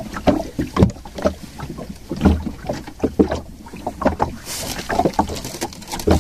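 Water slapping against the hull of a small fishing boat at sea, with irregular knocks and thumps, and a short rush of hiss about four and a half seconds in.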